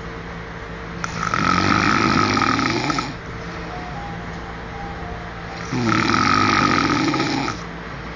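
A man snoring in his sleep: two long snores, each about two seconds, the second about four and a half seconds after the first.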